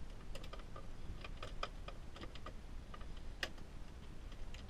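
Light irregular clicks and ticks from a BMW E28's steering column as the steering wheel is worked against the steering lock, with one sharper click about three and a half seconds in.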